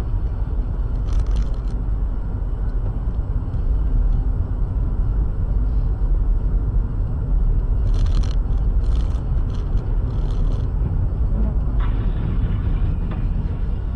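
A car driving, a steady low rumble of engine and road noise, with a few short hissing sounds between about eight and ten and a half seconds in.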